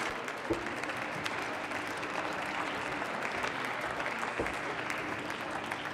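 Members of parliament applauding in the plenary chamber, a steady patter of many hands that eases off slightly near the end.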